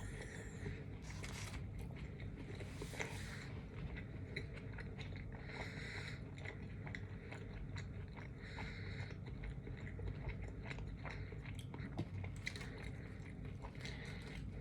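Close-up chewing and biting of a sub sandwich, with many small wet mouth clicks and smacks.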